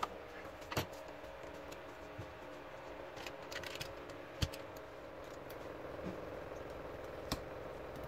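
Scattered small clicks and taps as laptop parts and tools are handled on a workbench, over a steady low hum. There is a short cluster of clicks a little past the middle and one sharper tap soon after.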